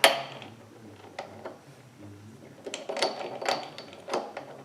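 Metal clanks and clicks of a part being fitted into a mini lathe's chuck. A sharp clank opens, a couple of faint clicks follow, and a run of quicker clinks comes near the end.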